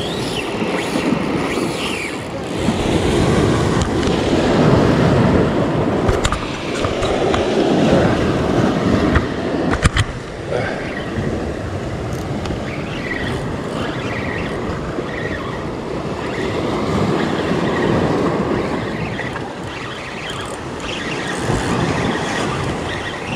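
Surf washing and surging against shoreline rocks, with wind rumbling on the microphone. There are a couple of sharp knocks about six and ten seconds in.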